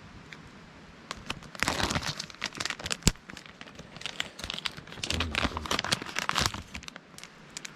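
Plastic sauce pouch being handled: crinkling and rustling in two bouts, with a sharp click between them, as the packet is torn open.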